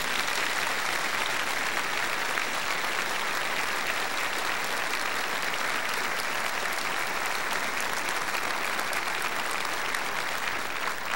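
A large audience applauding, a steady dense patter of many hands clapping that begins to die down at the very end.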